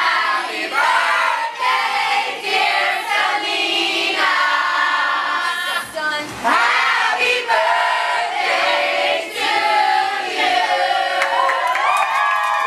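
Background music: a song with several voices singing.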